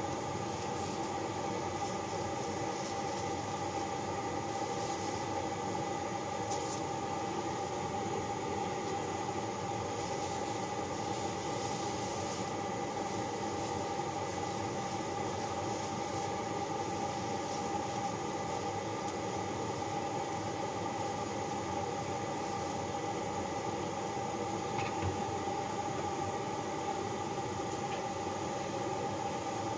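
Hand-held gas torch burning with a steady hiss while it heats a connecting-rod bearing cap for babbitting.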